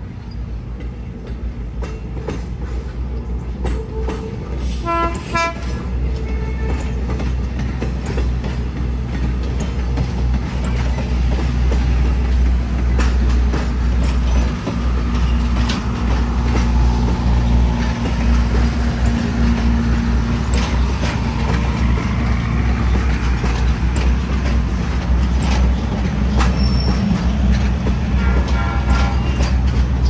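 Train locomotive's horn sounding a short blast about five seconds in and again near the end, over a steady low engine rumble that grows louder as the train draws closer.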